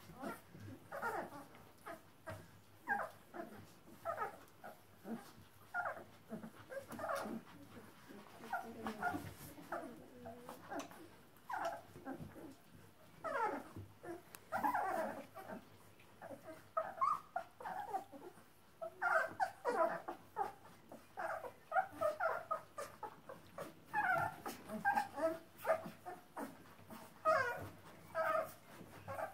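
Newborn puppies whimpering and squeaking: many short, high cries, some sliding up or down in pitch, coming in clusters, busiest in the second half.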